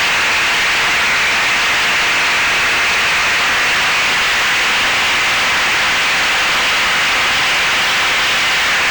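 Steady rushing hiss of airflow over the onboard camera microphone of an FPV flying wing in flight, with a faint electric motor and propeller hum holding a near-steady pitch.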